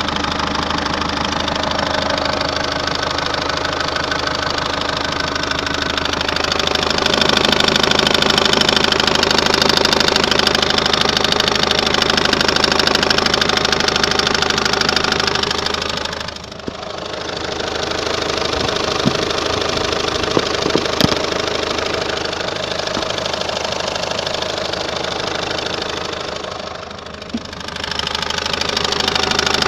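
Citroen C5's 1.6 HDi diesel engine idling steadily, with an extra noise from around the crankshaft damper pulley. The owner suspects a failing damper pulley, the alternator's overrunning clutch, or a bearing. The sound dips in loudness twice, about 16 and 27 seconds in.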